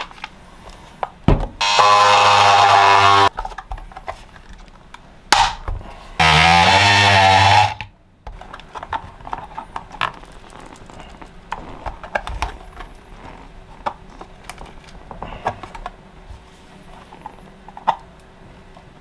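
A handheld cordless DeWalt power tool's motor runs in two short bursts, each about a second and a half long, the second rising in pitch as it spins up. Then come scattered clicks and scraping as a screwdriver pries at the battery's glued plastic case.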